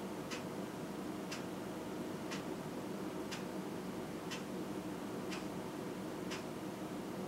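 A clock ticking steadily, about once a second, over a steady low background hum.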